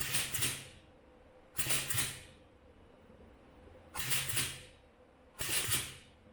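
Crimping machine closing on the crimp ring of a fiber optic connector four times, each stroke a short hissing burst, in two pairs: the ring is crimped twice over.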